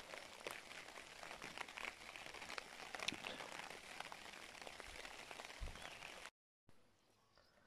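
Rain falling: a steady hiss of rain with many small, irregular drop ticks. It cuts off suddenly near the end, leaving only faint sound.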